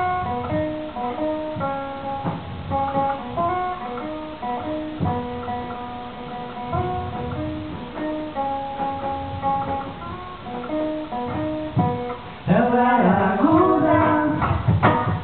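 Acoustic guitar played live, picking out a melody of held notes; about twelve seconds in, a voice starts singing along, louder than the guitar.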